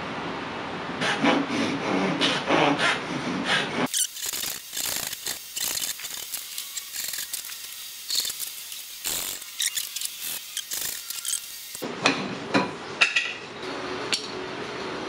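Japanese pull saw cutting through American walnut in short repeated strokes, about three a second, sawing out the waste to form tenons on the end panels.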